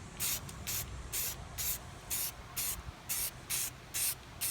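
Aerosol spray paint can sprayed in short, quick bursts, about two a second, laying light coats of paint on airsoft pistol parts.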